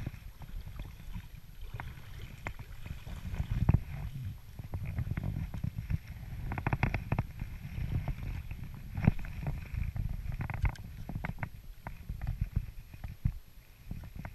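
Water sloshing around a belly boat, with a low rumbling handling noise against the camera, and scattered clicks and knocks as a spinning rod and reel are handled and cast.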